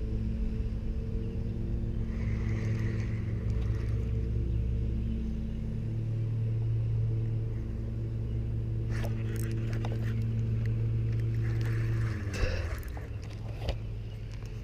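A motor or engine hums steadily at a low pitch, then drops in pitch and fades about twelve seconds in. Scattered clicks and rustles come in the last few seconds.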